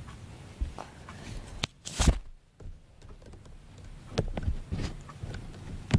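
Plastic K'nex pieces being handled and snapped together: scattered sharp clicks and light knocks, the loudest knock about two seconds in.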